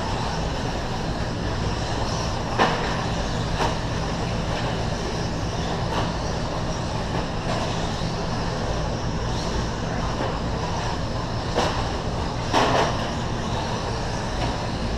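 Electric 17.5-turn brushless short-course RC trucks running on a dirt track: a steady mechanical rumble and hiss with a low hum underneath. A few short knocks stand out, a pair near three seconds in and another pair near twelve seconds.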